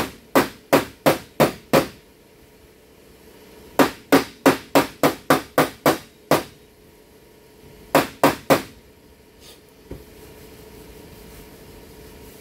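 Light hammer tapping on the sheet metal of a Ford Edge's body panel, driving a dented area in. Sharp taps in quick runs of about three to four a second: a short run at the start, a longer run of about nine a few seconds in, and three more near the middle.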